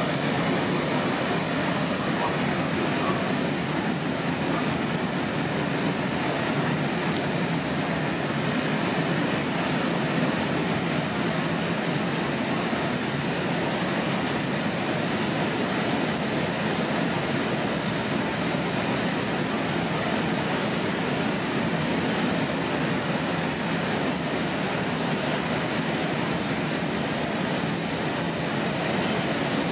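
Freight train of empty flat wagons rolling past behind a Class 151 electric locomotive: steady wheel-on-rail noise.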